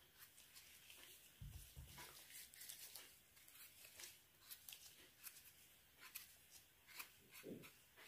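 Near silence with faint, scattered rustles and small clicks of things being handled. There is a soft low thump about one and a half seconds in and a brief low sound near the end.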